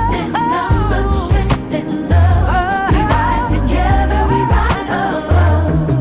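Music: a song with a gliding sung melody over heavy bass and a steady drum beat.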